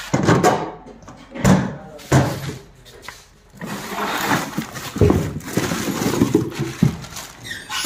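A few knocks and handling noises, then rustling and crinkling of plastic wrap and cardboard as a wrapped part is pulled out of a parts box, from about halfway in to near the end.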